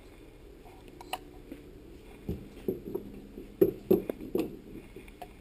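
Light clicks and knocks from a refrigerator condenser fan motor being handled and set back into a metal bench vise. There are about seven sharp knocks, the loudest about three and a half seconds in.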